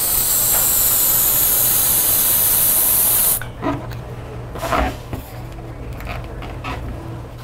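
Latex balloon being filled from a helium tank's inflator valve: a loud hiss with faint high whistling tones that slide downward, cutting off suddenly about three seconds in. Then a few soft rubbery squeaks and rustles as the filled balloon is tied off.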